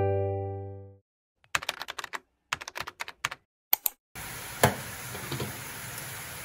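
Computer keyboard typing sound effect: a quick run of keystroke clicks in uneven groups, for text being typed into a search bar. A music chord fades out in the first second, and about four seconds in the clicks give way to a steady hiss with a single sharp knock.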